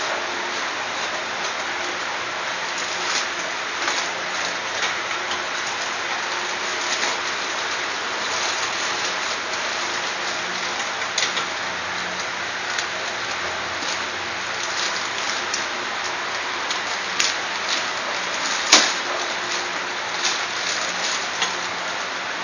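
Plastic mailer bag crinkling and rustling as it is cut and torn open by hand, with a steady hiss underneath and a few sharper snaps, the loudest about three-quarters of the way through.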